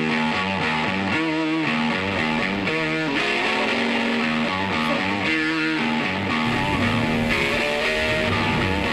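Background music led by strummed guitar.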